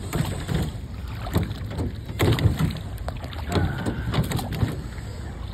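Rowboat on a lake: oars and water splashing and lapping around the hull, with a low wind rumble on the microphone.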